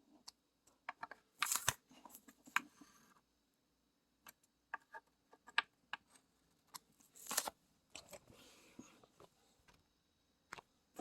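Scattered light clicks, taps and short rustles of small parts being handled and fitted by hand, with a few louder scrapes or rustles about one and a half, seven and eight seconds in.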